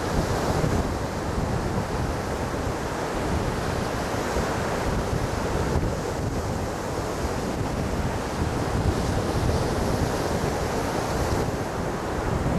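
Gulf of Mexico surf: small waves breaking and washing up the sand, a steady rushing wash, with wind rumbling on the microphone.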